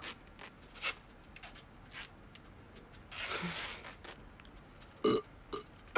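Quiet, close sounds of two people: a few soft clicks and rustles, a long breath out about three seconds in, and a short voiced murmur about five seconds in.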